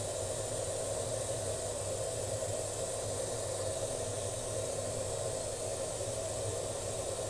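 A steady, unchanging hum and hiss of a running fan or motor, with no distinct events standing out.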